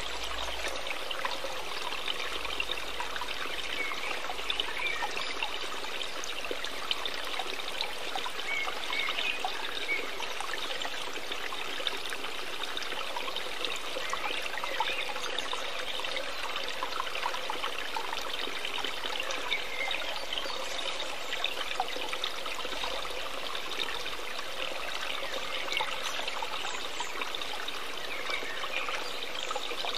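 Steady trickling and burbling of a running stream, a continuous water ambience behind the painting.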